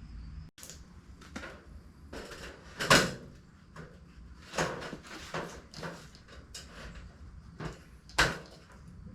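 Wooden framing and sheeting being handled and set in place: irregular knocks and clatters, the loudest about three seconds in and again near the end.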